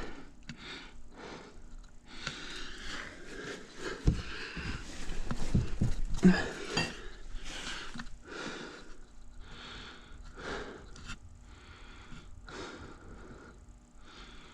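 A man breathing hard and fast from physical effort. A few metallic knocks and clunks of tools on the engine come from about four to seven seconds in.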